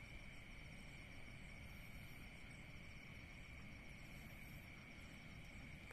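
Faint, steady chorus of night insects: a continuous high trill, with a higher, shorter call repeating about every two and a half seconds.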